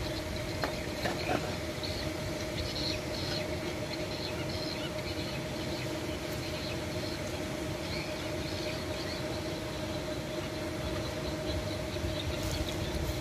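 Steady machine hum, like an engine running at a distance, holding one even pitch, with a few light metal clicks about a second in.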